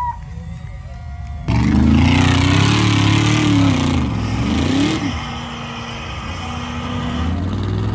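Big off-road truck engine in sand. A low rumble, then about a second and a half in, a sudden loud stretch of hard revving, the pitch rising and falling, with a rushing hiss of spinning tyres throwing sand. After about five seconds it drops back to a steadier, lower engine note that climbs slowly near the end.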